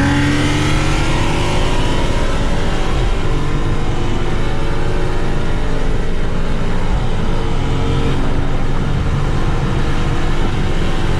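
Car engine at full throttle, its pitch climbing in long rising sweeps through the gears, dropping back at shifts about three and eight seconds in.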